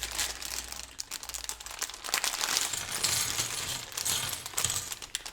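Plastic bag of LEGO pieces crinkling as it is opened and handled, with small plastic bricks clicking and rattling against each other.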